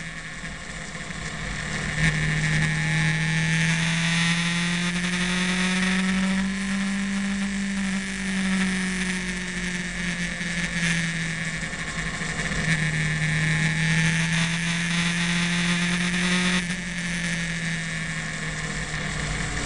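Motorcycle engine running at steady cruising revs while riding, its note easing off briefly at the start and picking up again about two seconds in, then rising and falling gently with the throttle. Loud wind rush on the microphone runs over it, dropping a little near the end.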